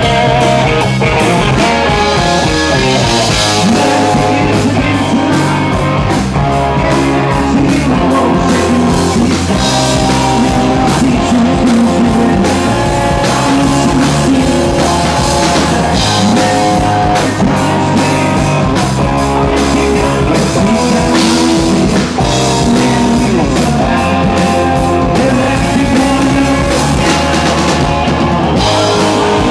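Live rock band playing loud, steady rock with electric guitar and a drum kit.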